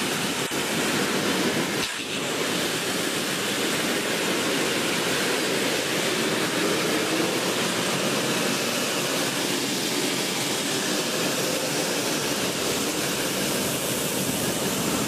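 Stage spark fountains hissing, a steady rushing noise without pauses.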